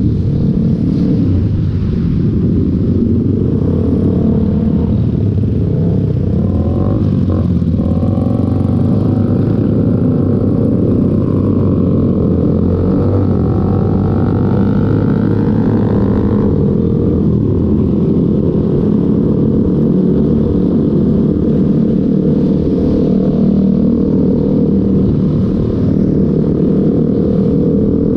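Motorcycle riding in traffic: its engine runs steadily under heavy wind rush on the microphone, and engine notes rise and fall in pitch between about 7 and 16 seconds in.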